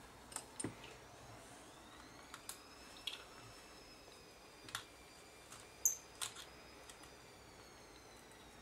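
Scattered light clicks and taps of a small plastic compact camera body being handled and turned over on a bench, the loudest about six seconds in. A faint, high steady whine sits underneath.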